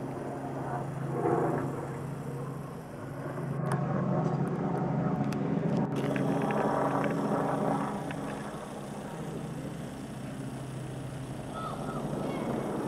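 Helicopter flying low overhead, a steady low rotor and engine drone that swells loudest from about four to eight seconds in, then eases as it moves off.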